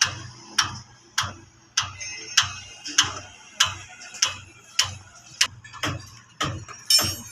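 Hand hammer striking over and over in a steady rhythm, about one sharp blow every 0.6 seconds, some blows ringing briefly, over a low steady hum.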